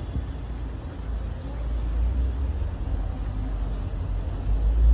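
Outdoor city ambience: a steady low rumble of road traffic around a station square, with no single event standing out.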